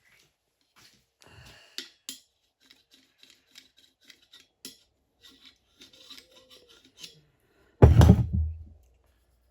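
Small metal clicks and scrapes of motorcycle fork parts being handled, then one loud, heavy thump about eight seconds in.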